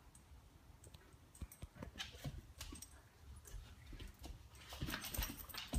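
A four-month-old Alaskan malamute puppy humping a large plush teddy bear: faint, irregular scuffling and rustling of fur against the plush, growing louder near the end.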